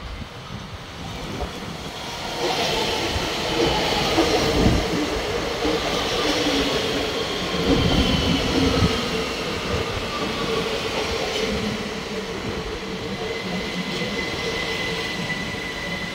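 ÖBB Cityjet (Siemens Desiro ML) electric train approaching and passing close by, its wheels rumbling on the rails and growing loud about two seconds in. A steady high wheel squeal sets in during the second half.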